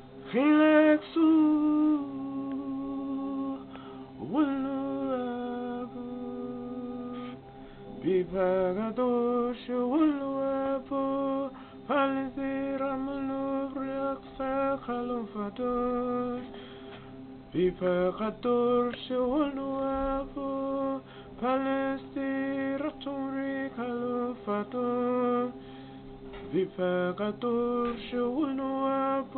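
Music: a single voice singing or chanting long held notes that slide from one pitch to the next, over a steady drone.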